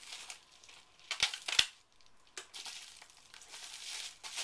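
Packaging crinkling and rustling as it is pulled open by hand. Two sharp snaps a little over a second in are the loudest sounds, and a longer stretch of rustling follows.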